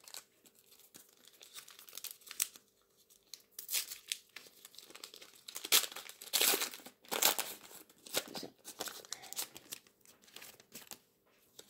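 Foil football-card packet being torn open and crinkled by hand: irregular tearing and crinkling rustles, loudest about six to seven and a half seconds in.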